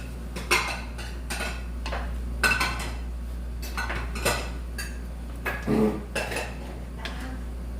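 Cutlery clinking and knocking against dishes as people eat: a scattered run of light clinks with a few louder knocks, over a steady low hum.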